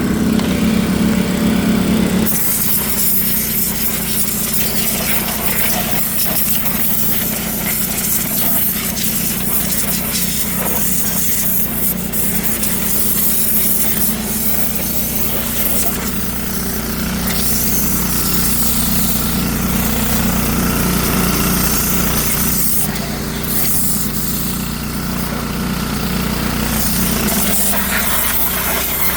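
Small-engine pressure washer running steadily, with the hiss of its high-pressure water spray hitting a greasy diesel engine; the spray hiss grows stronger about two seconds in.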